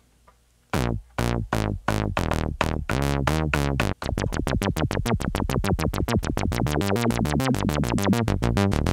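Dreadbox Nymphes analog synthesizer in mono mode playing a repeating pattern of short, plucky notes with a resonant low-pass filter envelope. The notes begin under a second in and come faster and faster, from about two a second to six or more a second.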